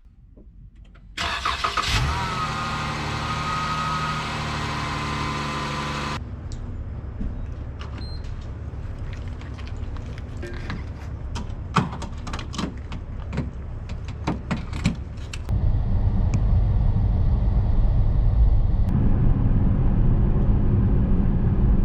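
A car engine starts about a second in and runs with a steady pitched note. It drops back to a lower running sound with scattered clicks, then a louder low rumble comes in near the end, as of the car driving.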